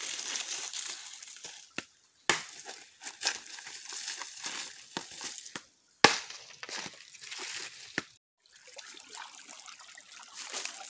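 Dry leaves and palm fronds rustling and crackling as hands rummage through them in a shallow stream bed, with a little trickling water; the sound breaks off abruptly a few times.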